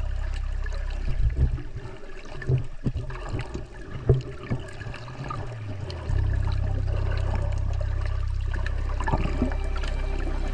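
Water sloshing and bubbling close to the microphone of a snorkeler's camera, with irregular clicks and gurgles. A steady low hum drops out for several seconds about a second in, leaving only the bubbling water.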